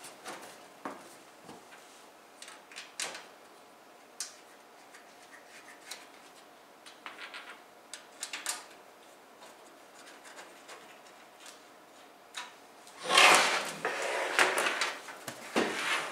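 Small clicks and taps of hardware being handled while a hard drive is fitted into a computer case, then a louder stretch of scraping and rattling about three-quarters of the way through.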